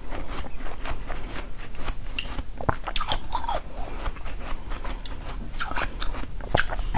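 Biting and chewing a frozen jelly close to the microphone: irregular crunching and crackling, with a few sharper snaps.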